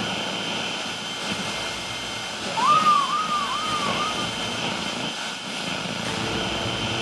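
Opening of an electronic music track: a steady rushing drone with a thin high tone running through it. Near the middle comes a short whistle-like figure of four rising-and-falling swoops, the loudest moment.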